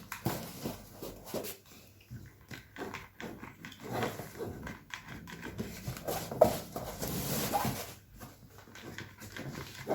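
A pet dog whimpering in short bouts.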